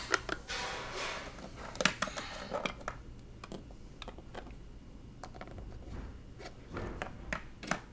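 Scattered light clicks and taps of small plastic toy figures being handled and moved about.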